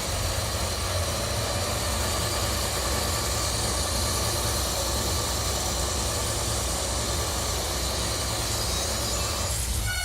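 Harsh electronic noise music: a steady, dense wall of noise over a heavy, fluttering low rumble, played live from a laptop and MIDI controller.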